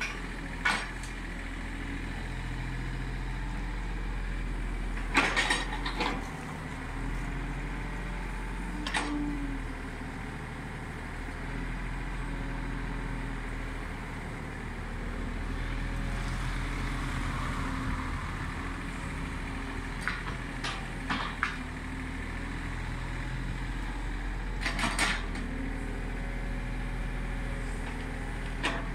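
Komatsu PC30 mini excavator's diesel engine running steadily under work, with sharp metallic clanks from the bucket and linkage. The clanks come singly or in quick clusters every few seconds.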